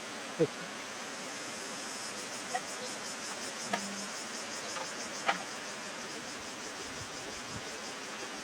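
Insects chirping in a fast, even pulsing hiss, with a few short sharp clicks, the loudest about half a second in.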